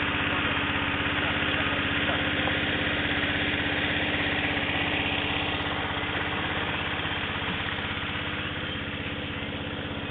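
Small petrol engine of a portable Tigmax water pump running steadily, growing a little fainter from about six seconds in.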